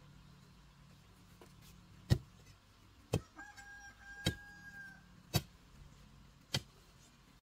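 A long-handled hoe chopping into hard, stony soil: five sharp strikes about a second apart, starting about two seconds in. A faint, long, high, held note sounds in the middle.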